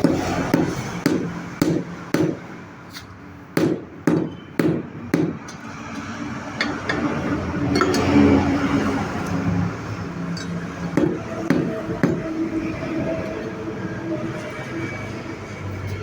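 Hammer blows in a tyre repair shop, probably on a wheel rim or tyre: a series of sharp strikes about half a second apart through the first five seconds, then a few scattered knocks later.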